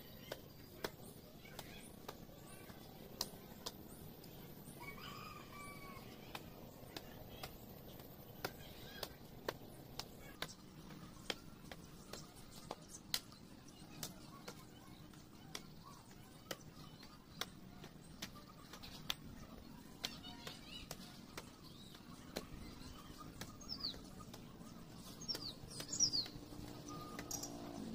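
Hoe blade striking and chopping into dry, grassy soil in short, uneven knocks, about one or two a second. Birds chirp faintly, with a few high falling chirps near the end.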